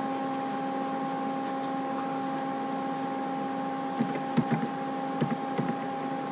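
A steady electrical hum with several faint evenly spaced tones above it, and a handful of short clicks about four to six seconds in.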